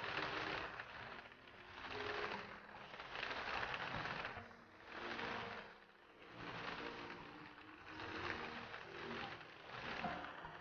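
Heavy rain hissing, swelling and fading every second or two, with faint music underneath.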